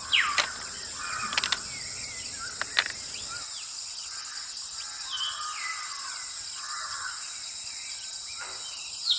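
Birds calling repeatedly over a steady high insect drone, with a few sharp clicks in the first few seconds.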